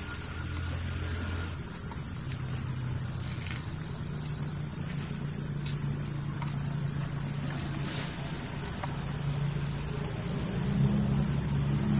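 Steady high, shrill insect chorus, with a low engine hum underneath that rises slightly in pitch and level near the end.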